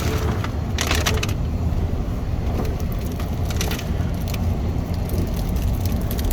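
Vehicle rumbling along a rough bush trail, heard from inside, with brush and branches cracking and snapping against it in short crackling bursts about a second in and again around three and a half seconds.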